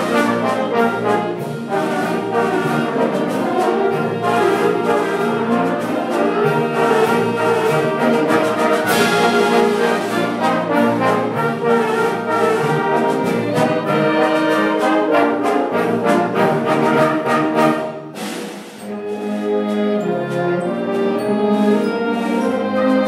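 Student concert band playing a piece, saxophones, trombones and other winds sounding together. About three-quarters of the way through the music briefly drops away, then comes back lower in pitch.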